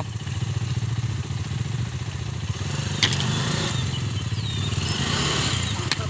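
KTM Duke motorcycle engine idling steadily, with a single sharp click about three seconds in.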